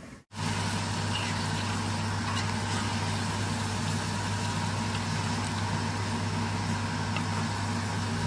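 Steady electric hum of a kitchen extractor fan over a gas stove, with a fainter hiss and a few light ticks from chicken cooking in the pot as it is stirred with a wooden spatula. The hum starts abruptly a moment in.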